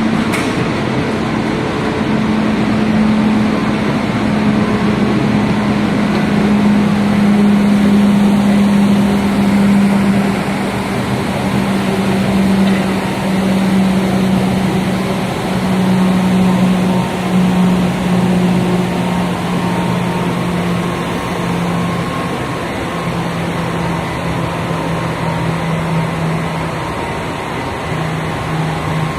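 Glass tempering furnace line machinery running: a loud, steady mechanical hum with a tone that slowly drops in pitch.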